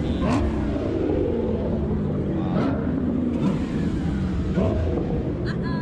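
Dodge Challenger driving slowly past, its engine running steadily, with the note rising and falling slightly as it goes by and other parade vehicles idling along behind it.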